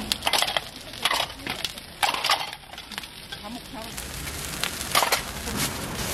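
Stainless steel dome lids clinking against a hot oiled griddle as they are set down over sorghum hotteok, a dozen or so sharp knocks over a steady sizzle of the pancakes frying.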